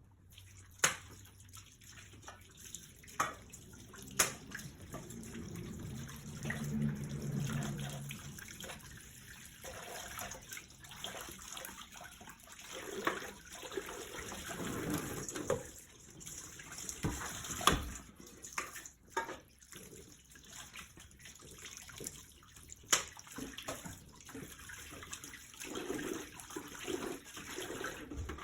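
Water running and splashing in a kitchen sink, with scattered sharp clinks and knocks.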